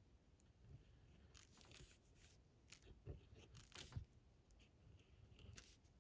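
Faint scratching of a fine-tip marker on paper as small circles are drawn, in a run of short, scratchy strokes.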